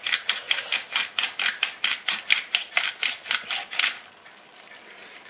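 Hand-twisted spice mill grinding chili flakes, a quick run of rasping clicks at about five or six a second that stops about four seconds in.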